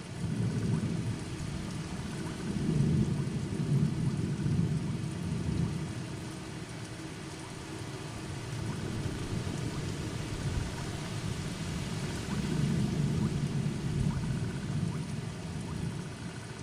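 Steady heavy rain with low rolling thunder that swells twice, a few seconds in and again about twelve seconds in.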